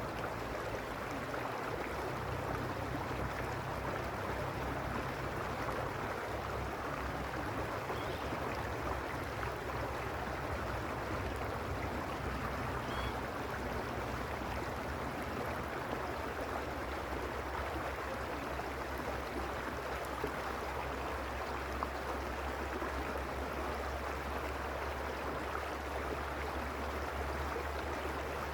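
Creek water flowing, a steady, unbroken rushing with a low rumble beneath it.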